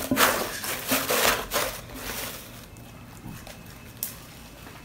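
Hands pressing and kneading clear slime mixed with instant snow against a tabletop: scattered squishing and rubbing noises for the first two seconds or so, then quieter handling with one short click about four seconds in.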